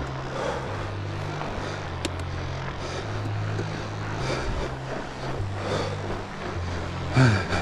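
Riding noise from a fat bike on a groomed snow trail: a steady low rumble from the wide tyres and the bike. Near the end comes one brief louder sound whose pitch falls.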